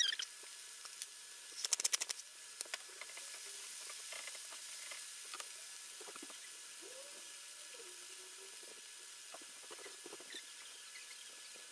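Strips of chicken of the woods mushroom frying in oil in a nonstick pan: a steady faint sizzle with scattered crackles, and a quick run of clicks about two seconds in.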